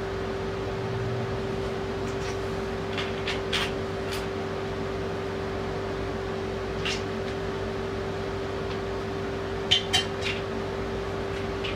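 Sharp clicks and taps of hard plastic bidet mounting parts being handled and set against a ceramic toilet bowl: a few about three seconds in, one near seven seconds, and a louder cluster of three around ten seconds. A steady mechanical hum with a constant tone runs underneath.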